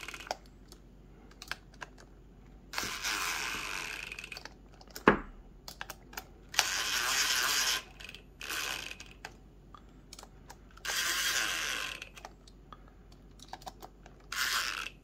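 Cordless DeWalt driver run in about five short bursts, driving the screws of an aluminum beadlock ring into an RC wheel a little at a time to walk the ring down evenly. One sharp click about five seconds in.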